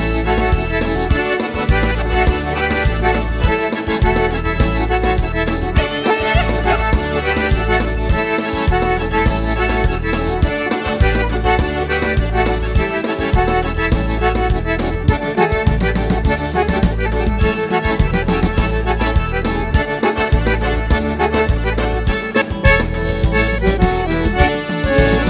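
Accordion (gaita) playing an instrumental passage of a gaúcho folk song, with no singing, over a steady, repeating bass line.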